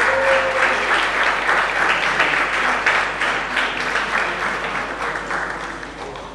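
A crowd applauding, many pairs of hands clapping together, the applause dying away gradually toward the end.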